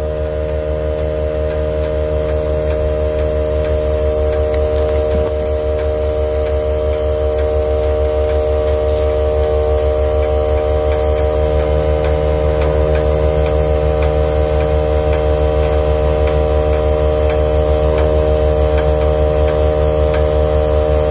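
Electric air pump running steadily with a fast pulsing hum, inflating a slowly leaking tire. It grows slightly louder over the stretch.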